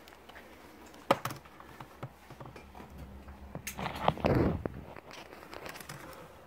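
Scuffs and rustles of someone moving and handling the camera in a small brick tunnel, with a sharp knock about a second in and a louder rustling scrape a little past the middle.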